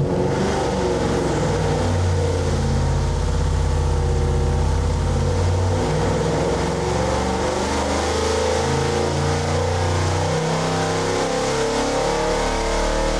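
Chevrolet 454 big-block V8 with port fuel injection running at full load on an engine dynamometer during a power pull, exhausting through open long-tube headers. Its sound is loud and steady for the whole pull.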